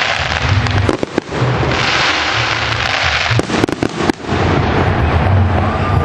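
Fireworks finale: a dense, continuous barrage of exploding shells and crackle, loud throughout, with brief lulls about one second and about four seconds in.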